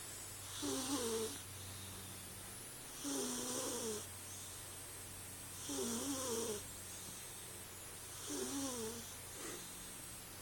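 Bombay cat snoring in her sleep: four quiet snores, each about a second long and about two and a half seconds apart.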